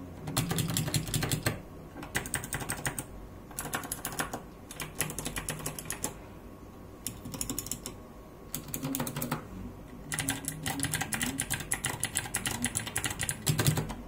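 Fast typing on a Royal Kludge RK61 60% mechanical keyboard with clicky RK Blue switches and ABS keycaps: rapid runs of sharp key clicks, broken by short pauses, with a sparser, quieter stretch about halfway through.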